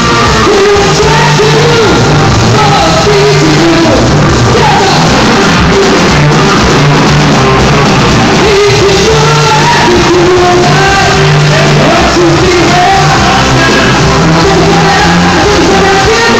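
Live rock band playing loud with a singer belting the vocal line, heard in a large hall and recorded very loud on a phone.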